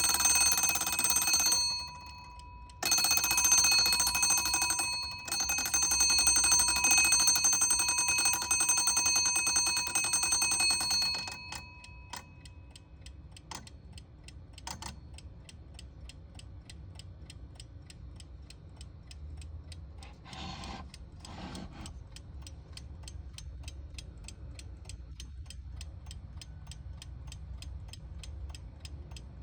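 Seikosha hand-wound mechanical alarm clock's bell ringing under rapid hammer strikes, breaking off twice for a moment and stopping about eleven seconds in. The clock's movement then ticks quickly and evenly, with two brief soft noises a little past the twenty-second mark.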